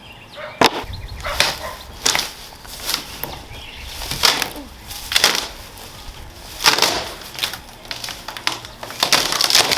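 Rotting wooden shed boards being knocked and broken loose by hand: several irregular sharp cracks and knocks, with splintering crackle between them.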